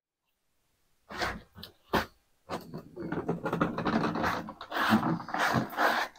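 Two knocks, then a rough scraping and rolling noise in uneven surges as a Honda EU3000is inverter generator is pulled across the floor.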